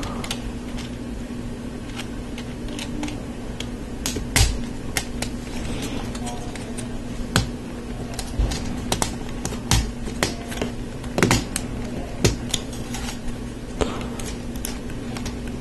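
LEGO Technic plastic pins and beams clicking and knocking as they are pressed and fitted together by hand: an irregular scatter of small clicks with a few sharper snaps, over a steady low hum.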